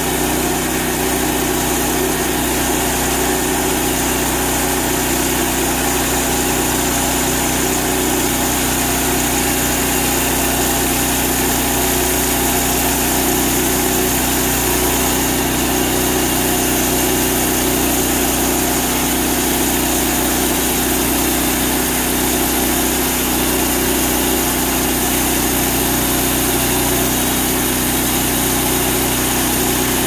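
Portable band sawmill's gasoline engine running at a steady speed while the band blade cuts through a cherry log, sawdust spraying from the cut.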